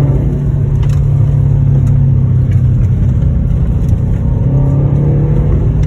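Subaru WRX STI's turbocharged flat-four engine running at fairly steady low revs, heard from inside the cabin, with the rumble of tyres on a dirt road. The revs ease off and pick up slightly along the way.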